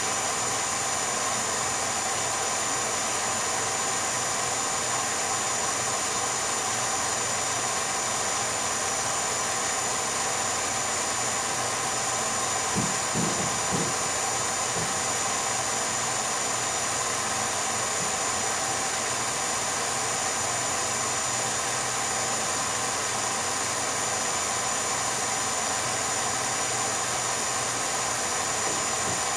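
Steady whir and hiss of a running 8mm movie projector, with a few faint knocks about halfway through.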